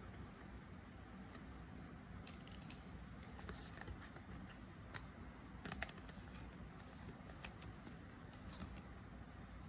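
Faint, scattered clicks and light scrapes of trading cards being handled and slid against one another, over a low steady room hum.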